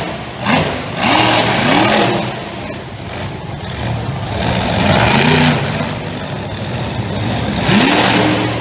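Tiger Shark monster truck's engine revving hard in repeated throttle bursts, the pitch climbing and falling with each one.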